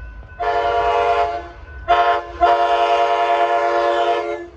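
Amtrak Pacific Surfliner train horn sounding a multi-note chord in three blasts: a long one, a short one, then a longer held one. This completes the long-long-short-long grade-crossing signal as the train approaches the station, with a low rumble from the train underneath.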